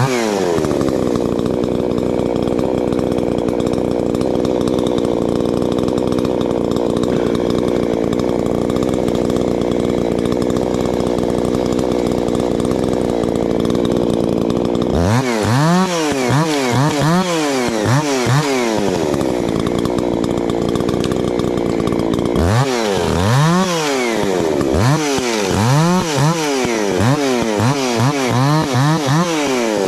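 Two-stroke chainsaw held at steady high revs for about fifteen seconds, then revved up and down in quick repeated throttle blips, steady again briefly, and blipped repeatedly again near the end.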